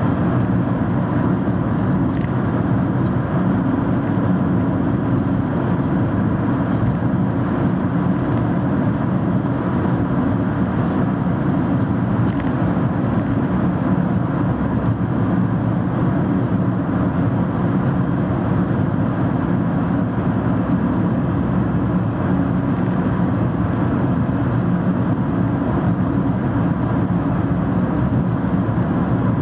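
Steady road and engine noise of a car cruising through a long road tunnel, heard from inside the cabin.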